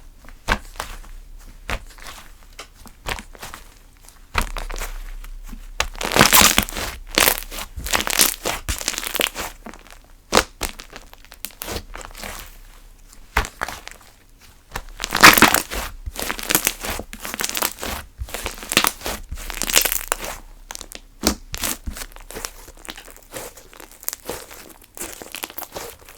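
Slime being squished, pressed and pulled by hand, giving dense runs of small clicks and pops that swell louder about six, fifteen and twenty seconds in.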